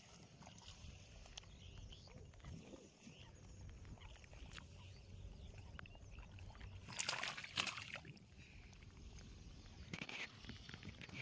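Freshly caught rohu fish flapping in shallow water, with brief wet splashes and slaps about seven seconds in and again about ten seconds in over a faint steady background.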